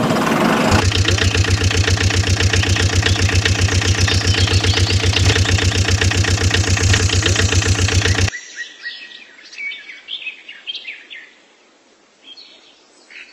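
Truck engine running with a rapid, even chug, cutting off suddenly about eight seconds in. After that, birds chirp faintly.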